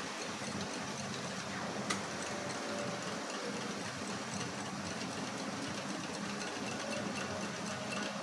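Wire whisk beating yogurt in a ceramic bowl: a rapid, steady clatter of the wires against the bowl, with one sharper click about two seconds in.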